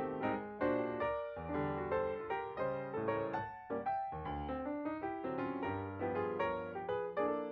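Background music: a piano melody with chords, its notes struck in a steady rhythm.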